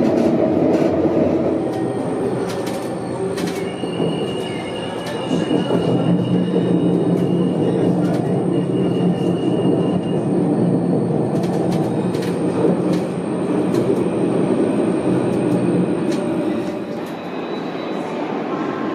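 Alstom Citadis 302 light rail tram heard from inside while it runs along the track, with a steady low rumble of wheels and running gear. A thin high whine runs through most of it, a wheel squeal sounds from a few seconds in to about the middle, and scattered sharp clicks come from the rails.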